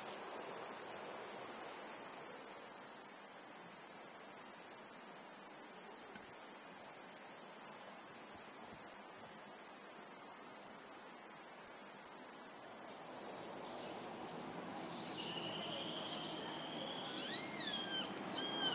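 Steady high-pitched insect buzzing over a low hiss, cutting off suddenly about fourteen seconds in. Near the end a bird gives several short rising-and-falling whistled calls.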